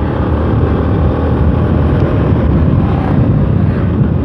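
Motorcycle riding along at steady speed: a continuous low rumble of engine and wind noise on the rider's microphone.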